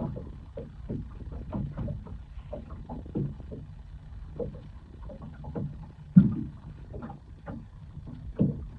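Small waves lapping and slapping against the hull of a small boat drifting on calm water: an irregular run of soft knocks over a low rumble, with one louder slap about six seconds in.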